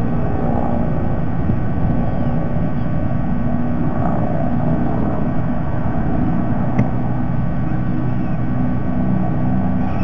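Steady low engine rumble with a constant hum underneath, unchanging in level.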